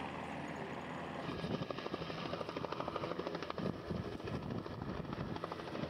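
Helicopter engine and rotor running steadily. A little over a second in, the sound gives way to a rougher, choppier stretch of rapid, uneven thuds.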